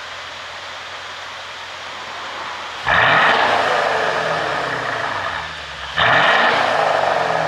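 Mercedes-Benz S500's twin-turbo V8 blipped twice from a steady rushing idle, about three seconds apart, each time jumping loud and then falling away as the revs drop. It runs an ECU tune meant to make it pop and crackle on the overrun.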